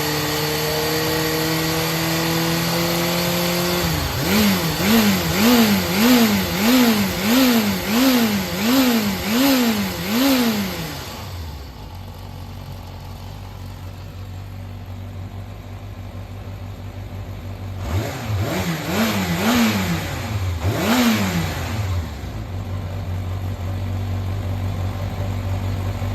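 Yamaha XJR400 (4HM) air-cooled inline-four engine running at a steady, slowly rising fast idle, then blipped repeatedly, about once a second, eight times, before dropping to a low idle; three more quick revs follow later, then it idles on. It runs cleanly with no abnormal noise, as the seller states.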